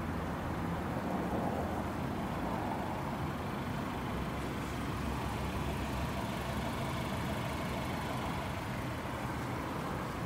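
A car engine idling steadily, a low even rumble.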